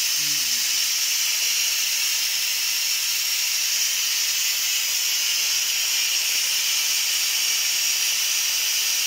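Electric pressure cooker venting steam through its pressure-release valve after cooking: a steady hiss that does not let up. This is the manual release of the built-up pressure before the lid can be opened.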